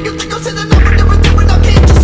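Hip-hop backing music with a heavy bass that drops out and slams back in under a beat of sharp percussion.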